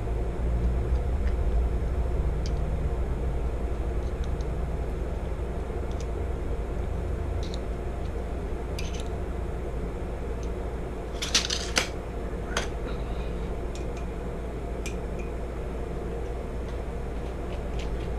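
Light clicks and clinks of hand tools and metal engine parts being handled, with a quick run of sharper clicks about two-thirds of the way through, over a steady low hum.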